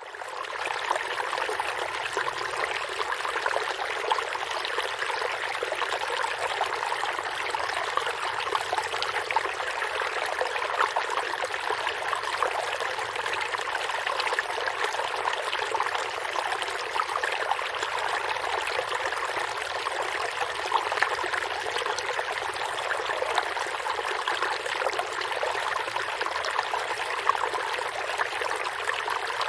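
Water running and trickling steadily, like a small stream, fading in at the start.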